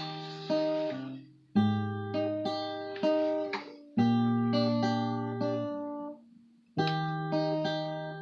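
Acoustic guitar playing a song's intro: picked chords with a fresh note about every half second, each ringing out, and two short breaks where it falls almost silent, about a second in and again about six seconds in.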